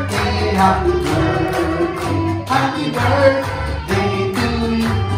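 Background music with singing over a steady beat.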